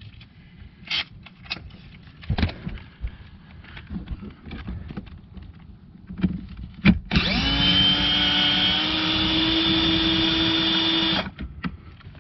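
A cordless power tool runs for about four seconds, spinning up and then holding a steady whine with a small step in pitch partway through, as it runs a 10 mm nut off. Before it, a few scattered clicks and taps of the tool and socket being handled.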